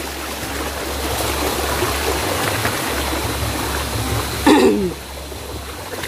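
Shallow mountain stream rushing and trickling over a rocky bed, with a short voice whose pitch falls about four and a half seconds in; the water sound drops a little in level after it.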